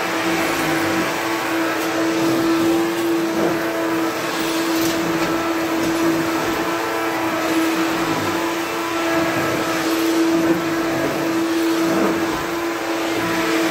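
Bagged vacuum cleaner running steadily while vacuuming, its motor giving a constant hum over the rush of air.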